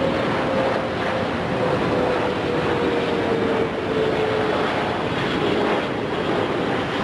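Jet engines of a Boeing 777-300ER, GE90 turbofans, passing close while landing: a loud, steady rushing roar with a faint tone that slowly falls in pitch as the plane goes by.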